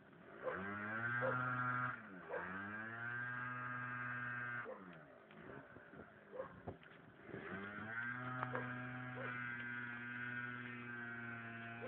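A motor whirring at a steady pitch: it spins up about half a second in, dips briefly near two seconds, winds down near five seconds, then spins up again about seven seconds in and holds.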